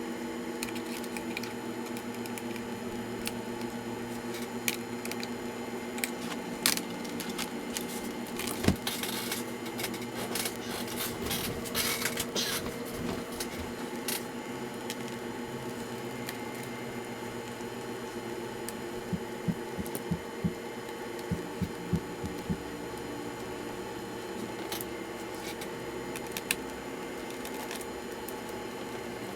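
Scattered small clicks, taps and rustles of hands handling laptop parts, over a steady electrical hum. A denser patch of clicking and scraping comes about a third of the way in, and a quick run of small ticks follows later.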